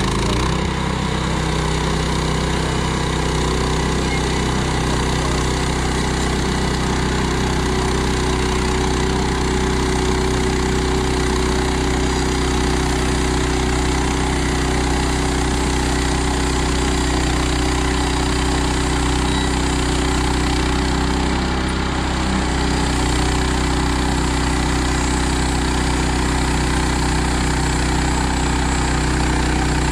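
Gasoline engine of a portable band sawmill running steadily at speed while the saw head is pushed through a log.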